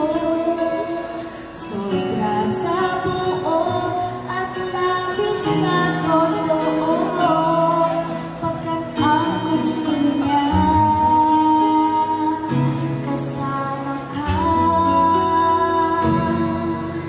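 A woman singing a song into a microphone over instrumental accompaniment, with long held notes.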